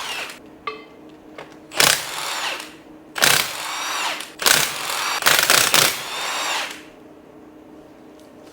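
Handheld power tool running in three bursts of one to two seconds each, its motor pitch sweeping up in each burst, falling quiet about two-thirds of the way through.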